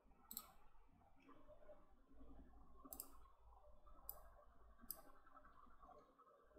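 Four computer mouse clicks spaced unevenly over a few seconds, faint against a low room hum.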